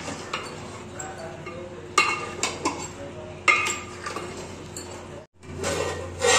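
Long metal ladle stirring meat in an aluminium cooking pot, scraping and clinking against the pot's side, with two sharp ringing knocks about two and three and a half seconds in. A louder clank comes near the end.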